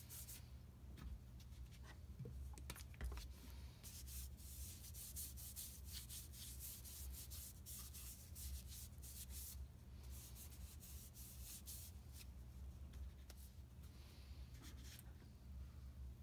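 A rag rubbing linseed oil into a wooden mallet head: faint, quick scratchy back-and-forth strokes that thin out in the last few seconds.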